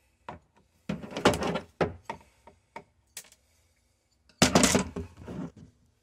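Side cutters trimming a small piece off the end of a metal refrigerator drain clip, with handling noise: several sharp clicks and two louder rustling, scraping stretches, about a second in and again past four seconds.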